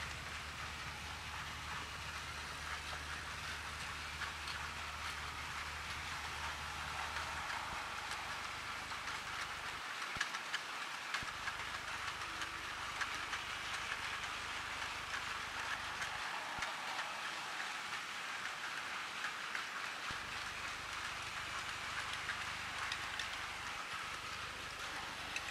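Battery-powered toy train running on plastic track: a steady whirring rattle with many light clicks.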